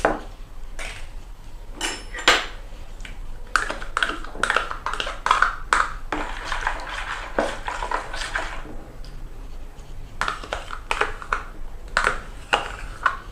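Spoon clinking and scraping against a container and mixing bowl as yogurt is spooned into the yeast mixture: a run of sharp clicks and taps with scraping in the middle.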